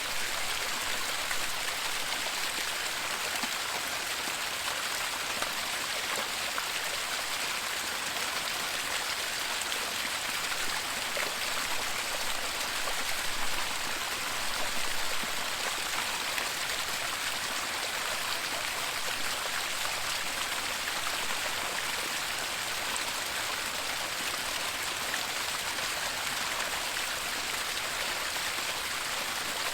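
Waterfall: a steady, unbroken rush of falling water, an even hiss strongest in the upper range.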